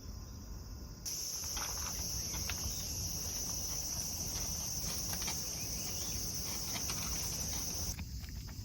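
Steady high-pitched chorus of insects, cut in abruptly about a second in and cut off near the end, over a low background rumble.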